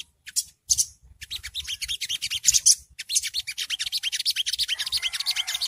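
Sunbird (songgo ontong) singing its rapid, high-pitched twittering 'ngriwik' song: a few separate chirps, then from about a second in a fast unbroken run of notes.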